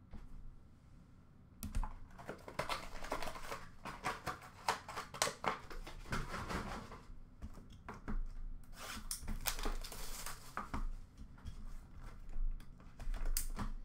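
Hands handling trading-card boxes and packaging: a string of light clicks, taps and rustling crinkles, starting after a quiet second or so.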